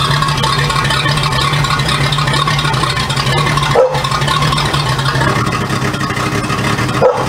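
A boat's motor humming steadily. The sound drops out for an instant twice, about four seconds in and near the end.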